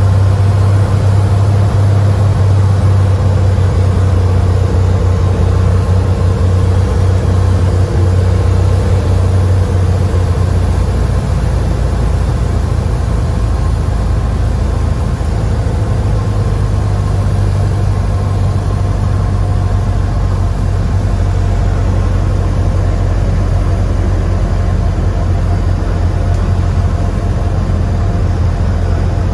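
Single-engine propeller airplane's piston engine and propeller droning steadily in the cabin on a landing approach; the low note shifts and settles lower about ten seconds in.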